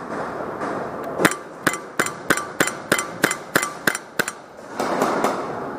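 Airsoft gun firing in rapid single shots: about ten sharp cracks at roughly three a second, then a few more near the end.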